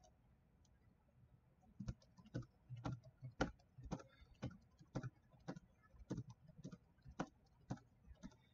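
Faint clicking of computer keys, a string of separate, irregular taps about two a second, starting about two seconds in.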